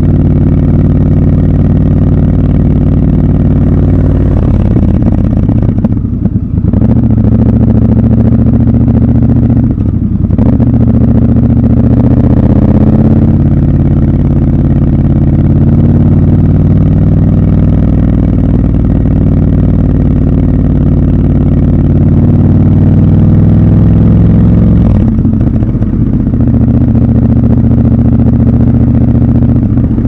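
Triumph Scrambler 1200 XC's 1200 cc parallel-twin engine running under way, heard from the rider's seat. The note is steady, with brief drops around six, ten and twenty-five seconds in and a rise in revs around twelve seconds.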